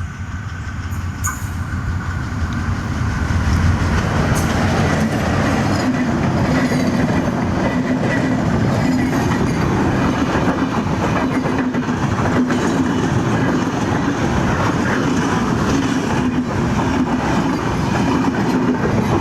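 A train passing close by on the track. The wheels run over the rails with a dense rumble and rapid clickety-clack, building up over the first few seconds and then holding loud and steady.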